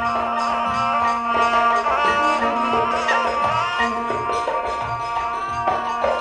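Instrumental passage of Upper Egyptian folk music: a wavering melody over a held drone, with a hand drum keeping a steady beat.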